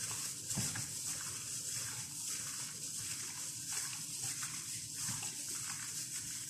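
Gloved hands mixing raw chicken breast pieces with turmeric powder in a glass bowl, making wet sloshing sounds as the meat is turned over and over.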